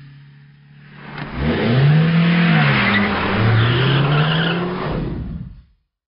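Car engine revving up and down while the tyres skid and squeal. The sound cuts off abruptly near the end.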